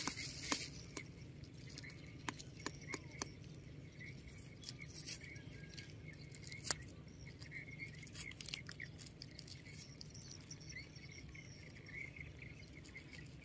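Faint scraping and tapping of a small plastic toy scoop digging in sand, with scattered short clicks. Birds chirp faintly now and then.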